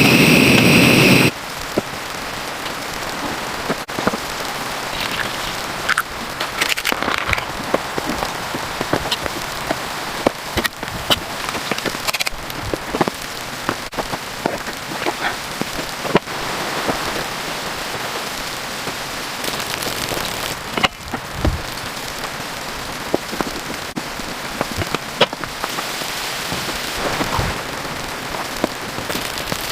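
Steady patter and hiss of rain falling on a surface, with scattered sharp taps throughout; a louder sound cuts off about a second in.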